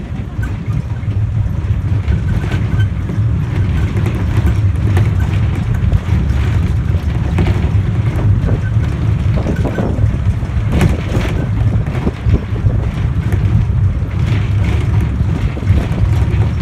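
Small mountain train running: a steady low rumble with scattered knocks and rattles.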